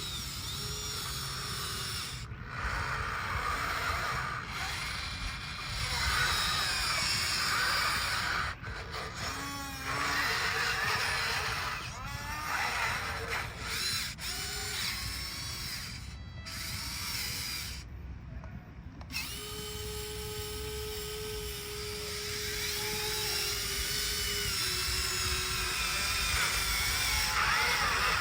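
Small electric motors of radio-controlled toy excavator and loader whining as the machines work, the pitch rising and falling in short runs. The sound breaks off abruptly several times.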